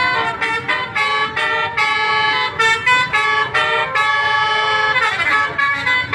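Multi-tone Basuri 'telolet' bus horn playing a quick melody of short, changing notes, with a sliding pitch near the end.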